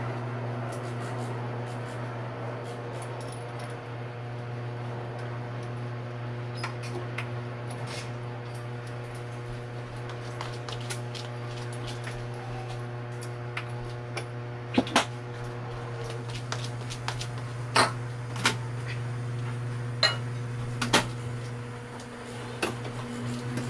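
Scattered metallic clinks and knocks of work going on in the cabinet under a kitchen sink, tools and parts touching pipes and fittings, with the sharpest clicks clustered in the second half. A steady low hum runs underneath.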